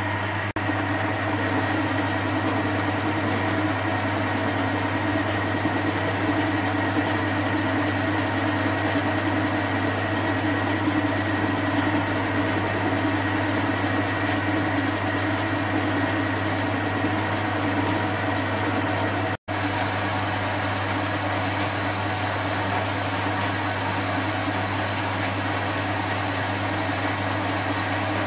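Small Chinese metal lathe running steadily at about 600 RPM while a TCMT carbide insert turns the chrome plating off a steel bar under power feed: a constant motor and gear hum. The sound drops out for an instant about two-thirds of the way through.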